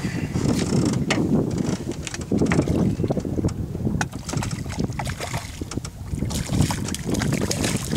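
Wind buffeting the GoPro headcam's microphone over river water lapping against a floating boat, with short sharp splashes scattered through.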